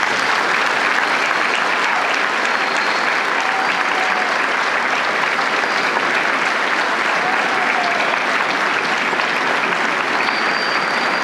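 Congregation applauding, many people clapping steadily together.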